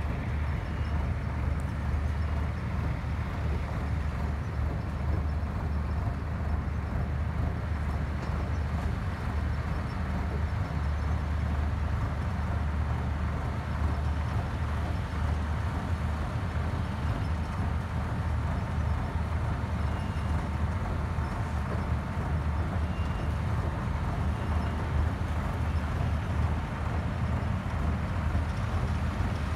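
Yanmar HS2000 sugarcane harvester running steadily: a continuous low diesel drone with dense mechanical noise over it, unchanging throughout.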